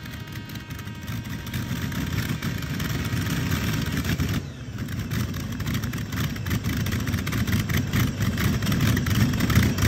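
Modified pulling tractor with several engines running hard at full throttle as it drags the weight sled down the track, growing louder. Its sound drops briefly about four and a half seconds in, then builds again.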